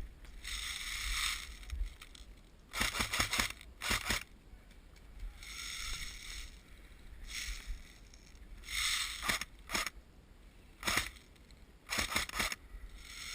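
Airsoft guns firing short bursts of rapid clicks, several bursts a second or more apart, with hissy rustling and scraping between them.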